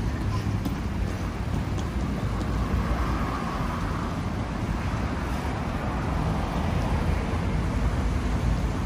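City street ambience: a steady low rumble of road traffic, with a vehicle's sound swelling a little and fading around the middle.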